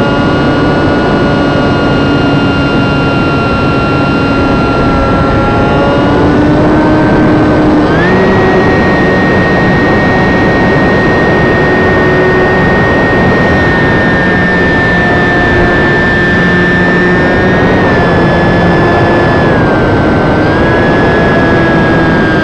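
E-flite UMX Beast ultra-micro electric RC biplane's motor and propeller whining in flight, with wind noise over the onboard camera's microphone. The pitch holds steady, steps up sharply about a third of the way in as the throttle is opened, then dips in small steps near the end.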